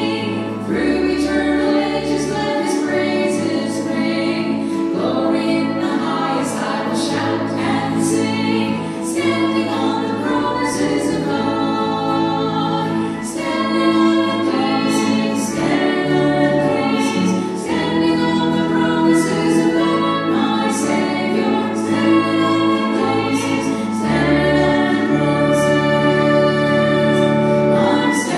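A woman singing a hymn with acoustic guitar accompaniment over a sustained low bass line.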